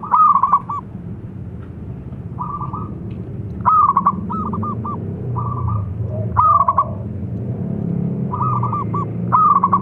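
Zebra dove calling: a loud phrase of one drawn-out coo followed by three or four quick rolling coos, repeated four times about every three seconds. Fainter, similar cooing phrases fall between them, over a steady low background hum.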